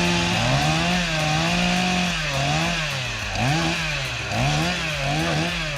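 Chainsaw engine running at high revs. Its pitch dips and climbs back again and again, more often toward the end, as the throttle is worked and the chain takes load in the cut.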